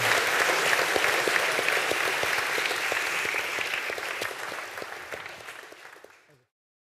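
Audience applauding, a dense patter of many hands clapping that dies away over the last few seconds and then cuts off to silence.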